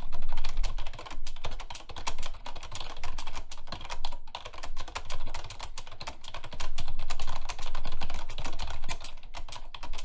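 Fast ten-finger typing on a computer keyboard, a dense unbroken stream of keystrokes at about 127 words a minute during a one-minute typing speed test.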